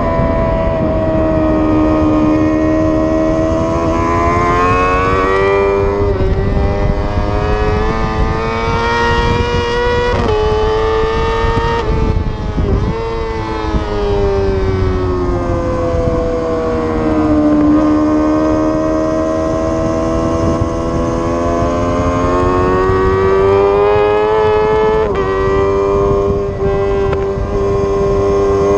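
Sportbike engine at high revs on a track lap: its pitch climbs slowly, breaks briefly a little before halfway, drops away for a few seconds as the bike slows, then climbs again with another gear change near the end. Wind rushes under the engine the whole time.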